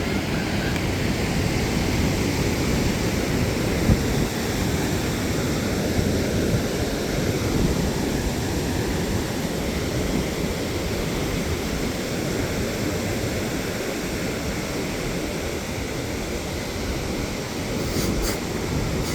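Ocean surf washing steadily onto the beach, with wind buffeting the microphone. Two brief high ticks near the end.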